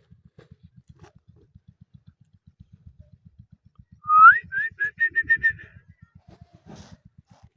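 Indian ringneck parrot whistling: one rising whistle, then a quick run of about six short, even notes. A faint, rapid low ticking runs underneath.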